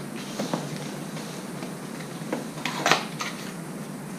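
Small parts and packaging being handled and unpacked from a cardboard box: light rustling with a few short clicks and knocks, the loudest near three seconds in.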